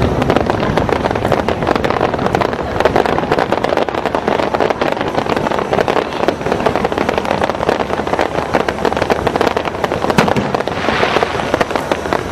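Aerial fireworks display with many shells bursting at once, making a dense, unbroken barrage of bangs and crackling. A brighter burst of hissing crackle comes near the end.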